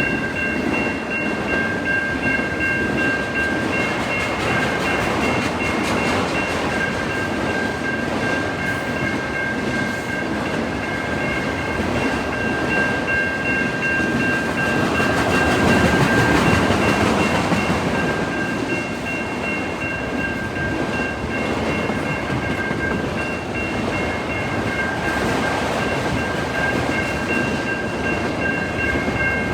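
A train rolling past, a steady rumble of wheels on rail with some clickety-clack, swelling a little about halfway through. A steady high whine of several tones runs through it.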